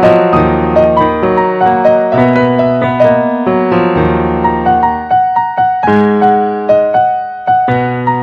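Background piano music: a gentle melody of struck notes, each one fading after it sounds.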